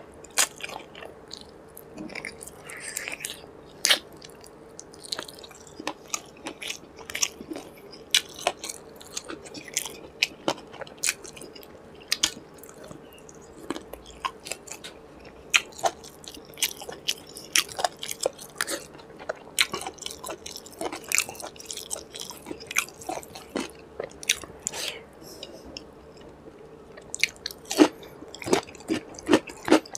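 Close-miked, wet chewing and biting by a person eating chicken curry and rice with his hand, with many quick lip smacks and mouth clicks at an irregular pace. A louder burst of smacking comes near the end.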